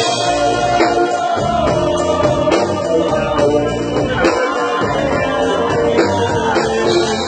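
Live grupera band music, guitar-driven, with male voices singing over it.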